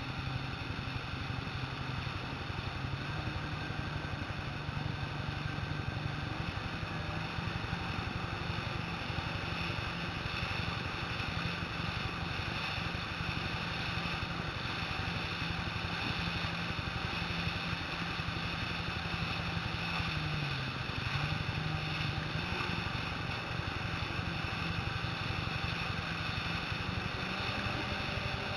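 Jet ski engines running steadily at speed over open sea, with a constant rush of water and air. About twenty seconds in, the engine note drops briefly and then climbs back.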